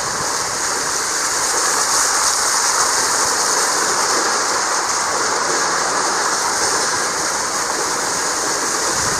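Truck driving through floodwater over a road, its tires churning the water and throwing a steady, loud rush of spray against the side of the truck.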